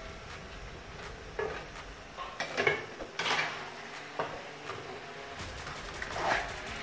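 Perforated metal spoon scraping and clinking against an aluminium kadai as frying pieces of potato and chicken are stirred, a run of irregular scrapes with the loudest about three seconds in.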